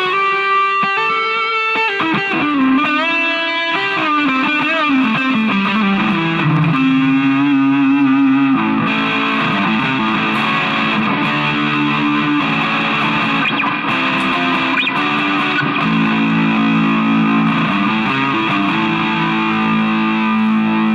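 Ibanez Jem7V-style electric guitar (a Chinese copy) played through distortion on its neck pickup, switch position 5: single notes with pitch bends and slides in the first few seconds, then sustained ringing chords and held notes.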